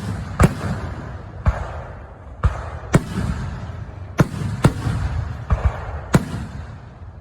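Aerial fireworks shells bursting in quick succession, about nine sharp bangs, each trailed by a rolling low rumble of echo.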